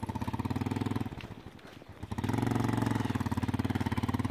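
Motorcycle engine running as it rides slowly over a muddy track. It eases off for about a second, then picks up again about two seconds in.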